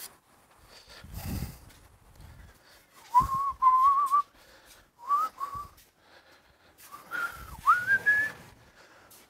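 A man whistling a tune in three short phrases, a wavering note that climbs higher in the last phrase, with a few knocks and shuffles of handling in between.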